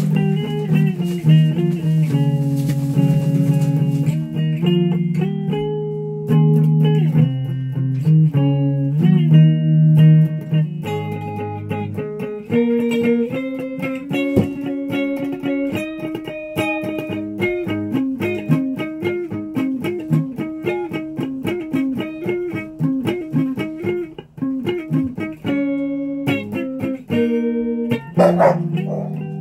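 Electric guitar played solo: longer held notes changing about once a second for the first dozen seconds, then fast runs of short picked single notes.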